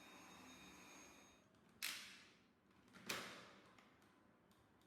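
Dyson V7 Animal cordless vacuum's motor whining faintly, then winding down and stopping about a second in, followed by two sharp plastic clacks of the vacuum being handled.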